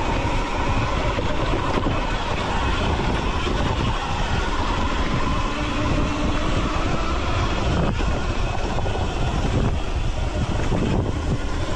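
Steady wind rush buffeting the microphone while an electric dirt bike rides along a dirt trail, with its tyres running over the dirt.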